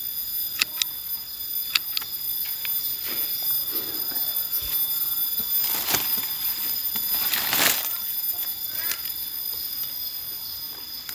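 Pruning shears snipping durian branches: a few sharp clicks in the first two seconds, then two louder rustles of leaves and twigs about six and seven and a half seconds in. A steady high-pitched insect drone runs underneath.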